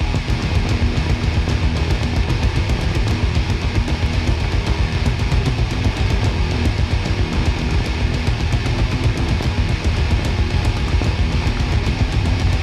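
Old-school death metal with distorted electric guitars and rapid drum hits, loud and continuous.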